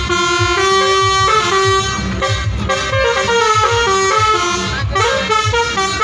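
Basuri telolet bus horn playing a melody, its notes stepping from pitch to pitch, over a steady low beat.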